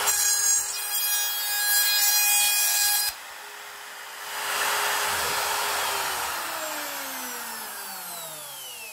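Handheld plunge router with a 10 mm straight bit, cutting wood as it takes off the leftover lip of a rabbet freehand. The cutting noise stops abruptly about three seconds in while the motor keeps spinning, then the motor winds down with falling pitch from about six seconds in.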